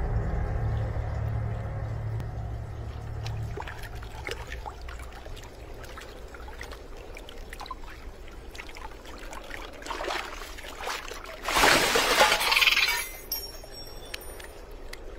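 Cave water dripping and trickling, over a low rumble that fades out in the first few seconds. About twelve seconds in comes a loud splash and pour of water lasting a second or so, as a small monkey climbs out of the water.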